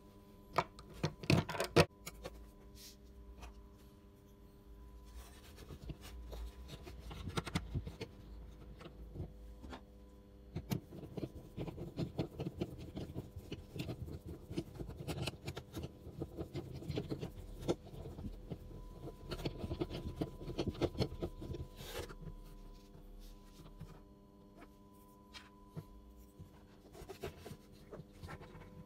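Handling sounds of a bridge clamp being fitted and tightened over an acoustic guitar's freshly glued bridge: a few sharp clicks and knocks at first, then irregular rubbing and scraping that eases off near the end.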